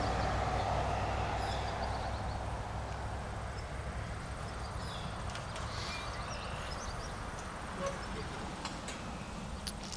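Diesel freight locomotives running at a distance: a steady low engine drone that eases off over the first few seconds, with a few sharp clicks near the end.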